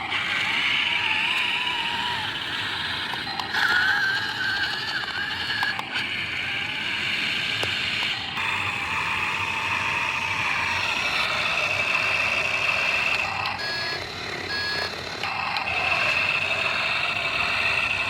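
Radio-controlled model excavator's electric hydraulic pump whining as the machine digs, its pitch wavering with the load. There are two short beeps about fourteen seconds in.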